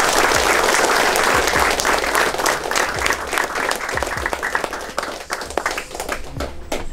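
A group of people applauding by hand, a dense run of clapping that thins out over the last two or three seconds.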